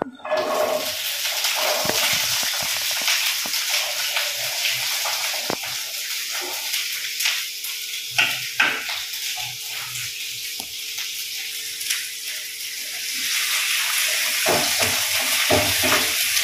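Shallots dropped into hot oil in a frying pan: a sudden loud sizzle as they hit, then steady frying with scattered crackles. Near the end a spatula stirs them.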